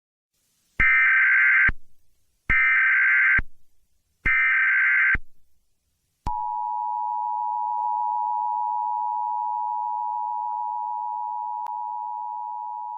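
Emergency Alert System tones: three identical electronic data bursts, each about a second long, then about six seconds in the steady two-tone attention signal starts and holds. Together they announce an emergency alert message.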